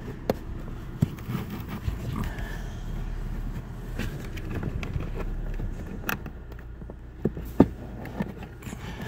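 A new pleated cabin air filter is being pushed and bent into its plastic housing in a 2016 Volvo XC90, rubbing and scraping against the plastic. A few sharp knocks come as it catches on the housing.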